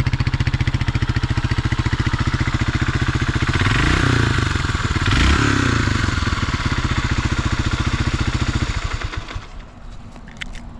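Honda XL250S four-stroke single-cylinder engine idling with an even, steady beat. The throttle is blipped twice, and the engine rises and falls in pitch cleanly each time. About nine seconds in the engine is switched off and runs down. It starts and revs well with no abnormal noises, a sign of a healthy engine after long indoor storage.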